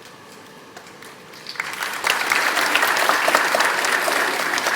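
Audience applause: after a brief quiet, many hands start clapping about a second and a half in and keep up a dense, steady clapping.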